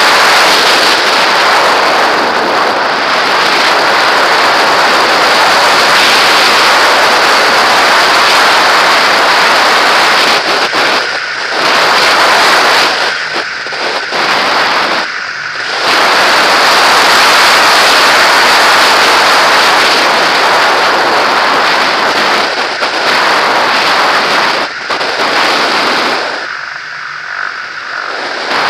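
Loud rush of wind over a camera mounted on a model glider in flight. It thins out briefly several times: a little after ten seconds in, twice around the middle, and for a couple of seconds near the end.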